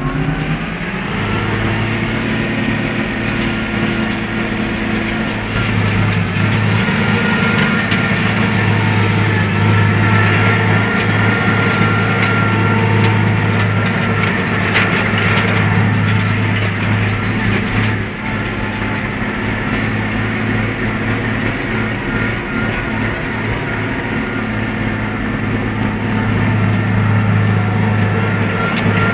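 Case IH CS150 tractor's diesel engine running. It rises in pitch in the first second, then holds at a steady speed.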